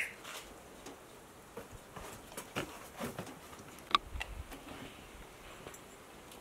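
A dog eating from a metal bowl: faint scattered clicks and ticks, with one sharper click about four seconds in.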